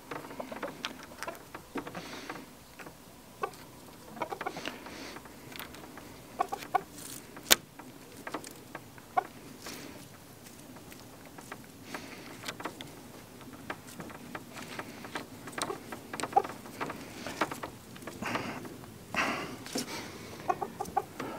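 Chickens clucking close by, with short calls scattered through, mixed with sharp clicks from cable connectors being handled; the loudest click comes about seven and a half seconds in.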